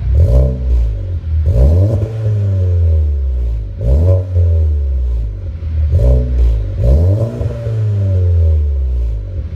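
A car engine being revved hard from idle, blipped about five times, each rev rising quickly and falling back. Sharp crackling pops from the exhaust come as the revs drop.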